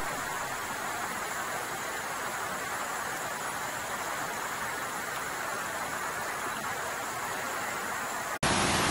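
Steady rush of water cascading down a fresh landslide channel over rocks and debris. Just before the end it cuts to a louder, deeper rush of muddy floodwater.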